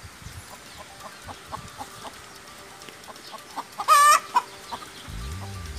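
Chickens clucking softly in short repeated notes, with one loud, brief squawk just before four seconds in.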